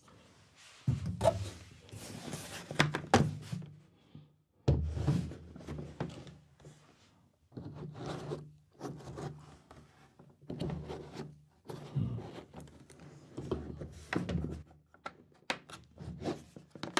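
Hard plastic carry case and microphone gear being handled on a table: irregular knocks, clicks and dull thunks as the case is lifted, set down and handled.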